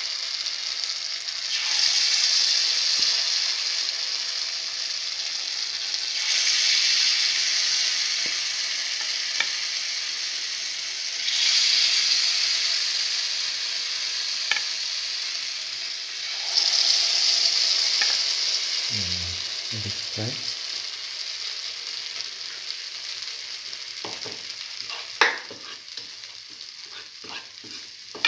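Lentil and chickpea-flour fritter batter sizzling in hot oil in a cavity pan. The sizzle swells four times, about every five seconds, as fresh batter goes into the oil, then settles to a softer crackle with a few light knocks and taps near the end.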